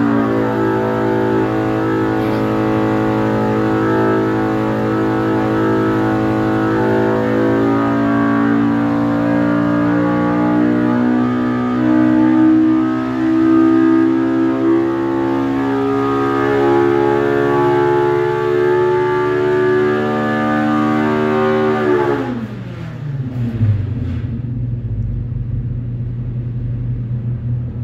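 Polaris RZR Pro R 2.0-litre four-cylinder engine, breathing through an EVO header and muffler, pulled under load on an engine dyno in a full-throttle power sweep. Its pitch climbs steadily for about 22 seconds toward the 9,000 rpm end point, then drops quickly as the throttle closes and it settles to idle.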